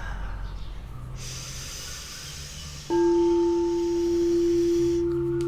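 Background noise, then about three seconds in a singing bowl is struck and rings on in one steady, clear tone.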